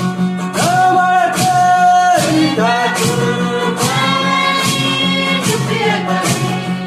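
Music: voices singing together in long held notes over a steady percussion beat.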